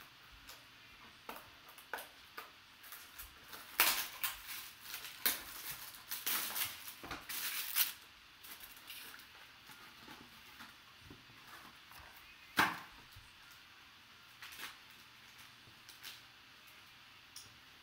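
Hands opening a cardboard trading-card box and unwrapping its contents: scattered taps and clicks, with a stretch of rustling, crinkling handling about four to eight seconds in and one sharp knock past the middle. Lighter rustles and ticks follow as a black-wrapped item is pulled out.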